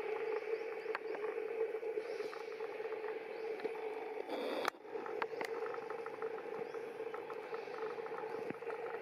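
Steady outdoor background hum with faint high chirps and scattered small clicks, broken briefly by a short dip and a click about four and a half seconds in.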